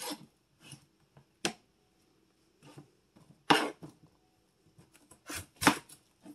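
Kitchen knife cutting through peeled raw russet potatoes and knocking down onto a cutting board: several sharp chops at uneven intervals, the loudest about three and a half seconds in and again near the end.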